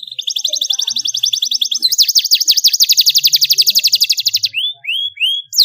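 Canary singing: two long, fast rolling trills of repeated notes, the second a little higher, followed by three short rising chirps and a falling note.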